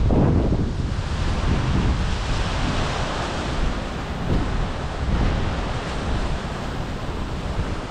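Strong gusty wind buffeting the microphone over a continuous wash of wind-driven waves breaking against a rocky rip-rap shoreline.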